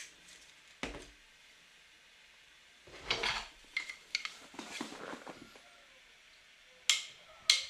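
Intermittent knocks and light clattering of objects being handled: single sharp clicks near the start and near the end, with a cluster of clatter in the middle.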